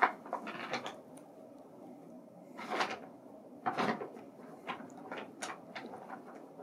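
Brown paper bag crinkling and rustling in short bursts as a kitten scrambles around inside it, with a sharp crackle at the start and the biggest rustles about three and four seconds in.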